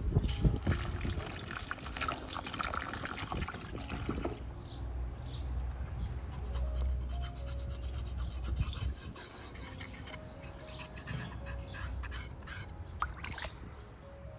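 Water from a garden hose runs and splashes onto beef hooves in a large metal basin for the first few seconds. After that comes a softer stretch of scratchy strokes as a knife scrapes the singed hooves clean under the water.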